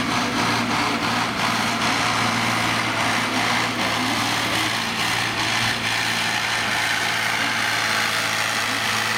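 A Case 1690 farm tractor's diesel engine runs hard and steadily under heavy load while it pulls a weight-transfer sled.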